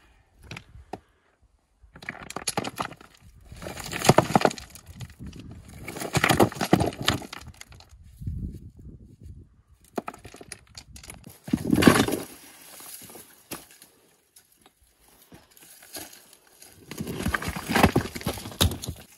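Loose rocks being lifted and set down by hand, clacking and scraping against one another in several separate bouts.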